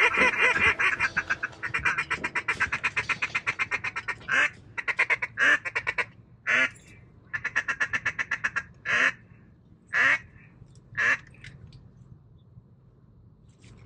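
Duck calling: a fast chattering run of calls, then loud single quacks about a second apart, another quick chattering run, and three more quacks before it stops a few seconds before the end.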